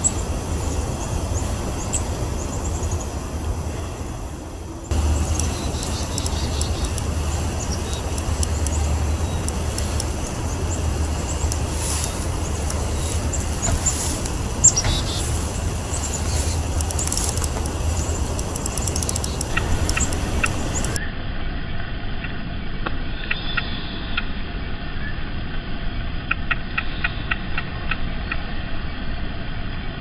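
Outdoor ambience with a steady low rumble, and in the last third short rapid runs of taps as a downy woodpecker pecks at bark while feeding. One sharp knock stands out near the middle.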